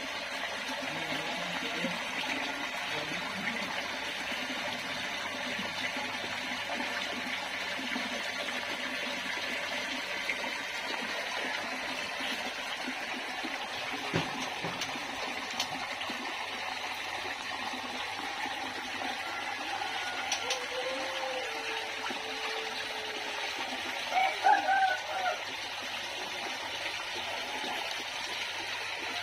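Steady hiss of running water, with a few short bird calls about 24 seconds in.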